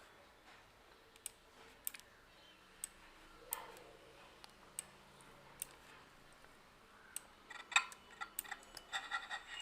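Faint, scattered computer mouse clicks, about one a second, coming quicker near the end.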